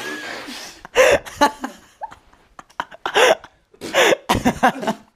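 A young man gagging and retching in several short, loud heaves, close to throwing up.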